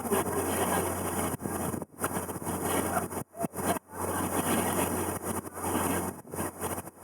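River cruise boat's engine running steadily under wind noise on the microphone, with the sound cutting out briefly a few times.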